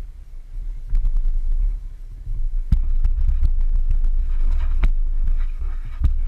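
ATV engine idling with a low, steady throbbing, with a few sharp clicks and rattles.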